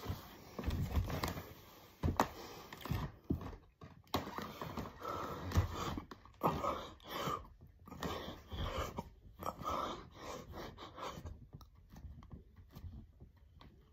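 A man breathing hard and fast through a set of push-ups: a steady run of loud, noisy breaths, roughly one a second, with a few low thumps early on.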